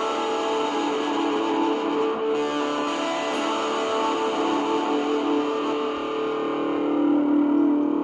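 Electric guitar played through distortion and overdrive with hall reverb and a Strymon Brigadier delay: a chord struck just before, held and ringing steadily.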